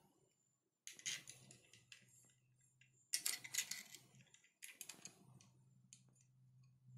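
Quiet clicks and rattles of small printer parts being handled and fitted by hand during assembly of a Creality Ender 3's X-axis arm and extruder, in three short bursts about one, three and four and a half seconds in, over a low steady hum.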